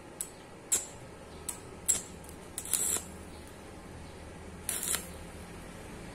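Stick welder striking short arcs to tack the cut seams of a bent square hollow steel pipe: a string of brief bursts, about six, the longest near three and five seconds in.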